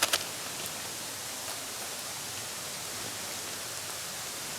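Steady, even outdoor hiss like running water or wind, with two sharp clicks right at the start and a few faint ticks after.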